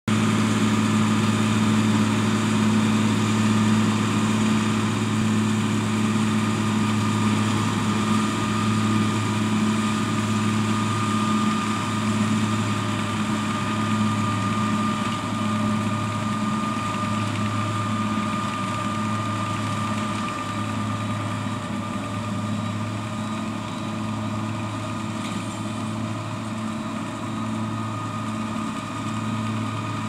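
New Holland tractor engine running steadily while it pulls and drives a Lely round baler working along a row of cut grass. The sound is a steady engine hum with a high, even whine above it, easing slightly in level in the second half.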